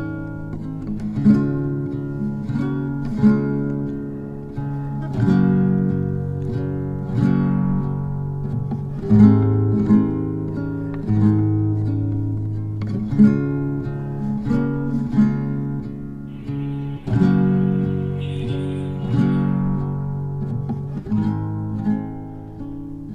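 Background music: plucked and strummed acoustic guitar with a steady rhythm.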